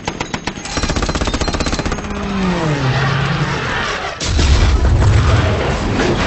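Rapid anti-aircraft machine-gun fire in a movie battle soundtrack, then a diving plane's falling engine whine, then a deep explosion about four seconds in.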